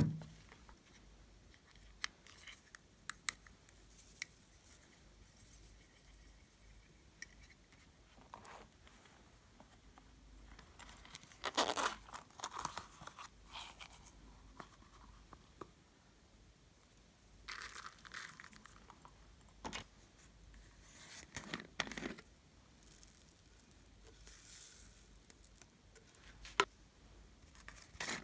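Hands working glossy slime with mixed-in bits: scattered small clicks and pops, and several short bursts of crinkly, tearing sound as the slime is stretched and squished.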